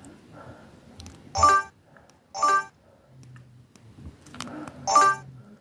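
A Samsung SGH-J700 mobile phone playing a ringtone: short, bright chiming notes, two about a second apart, then a third after a pause of about two and a half seconds.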